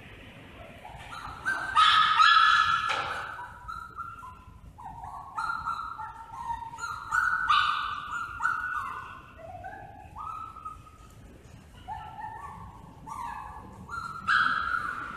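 A dog whining in a run of high, drawn-out cries that step up and down in pitch, loudest about two seconds in and again near the end.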